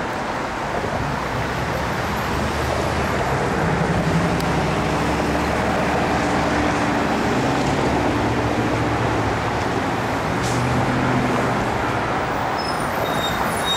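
Steady rumble of road traffic, with a low vehicle engine hum that swells in the middle.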